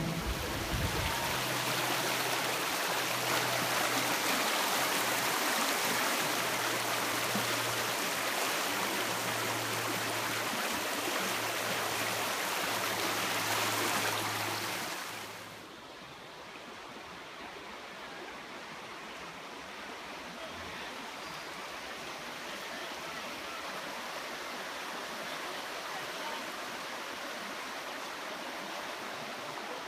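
Fast-flowing stream rushing in whitewater, a loud steady hiss. About halfway through it cuts off to a much quieter, steady outdoor hiss.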